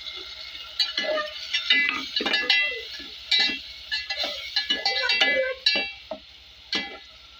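A metal spoon stirring and scraping masala in a metal cooking pot, knocking against the pot's sides and bottom in short, irregular clinks with a metallic ring.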